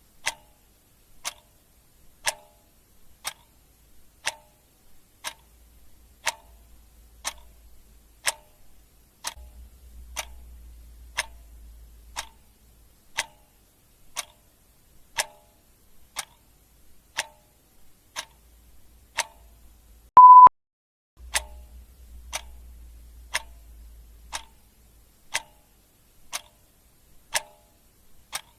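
Clock ticking steadily, about one tick a second. About two-thirds of the way through there is a single short, loud beep.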